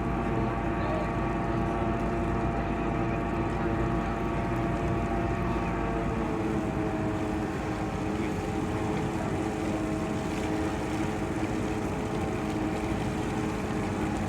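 Ship machinery running with a steady drone of several held tones, shifting slightly about six seconds in, with wind on the microphone.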